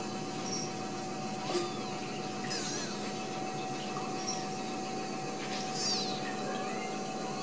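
Steady whirring machine hum with one constant tone, with a few faint, short, high squeaks and a single tap about one and a half seconds in.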